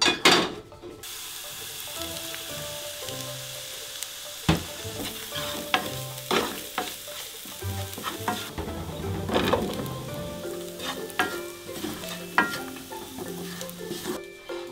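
Oil sizzling in a frying pan as a paste with a dried red chilli fries, the hiss starting about a second in, with a wooden spoon stirring and knocking against the pan. About two-thirds of the way through, chunks of potato are tipped into the pan.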